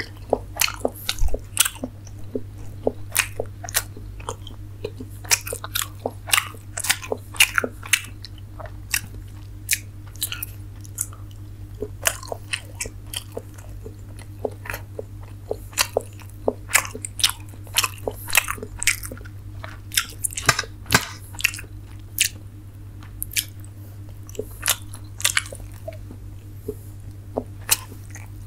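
Close-miked chewing of a mouthful of steamed momo dumplings: irregular wet mouth smacks and clicks a few times a second, with a steady low hum underneath.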